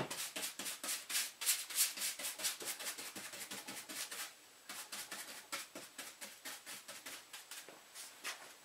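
Bristle brush scrubbing thick gun grease, thinned with WD-40, onto a rifle's barreled action in quick back-and-forth strokes, about five a second, pausing briefly about four seconds in. A sharp knock comes right at the start, the loudest sound.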